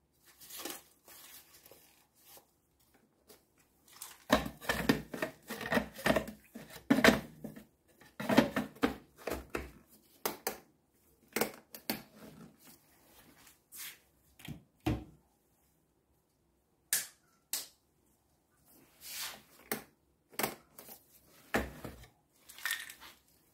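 Bosch food processor run in short pulses, its blade crushing and rattling dried eggshells and cuttlefish bone into a coarse powder. A dense run of crunching starts about four seconds in and lasts several seconds, then comes a string of brief bursts with short gaps between them.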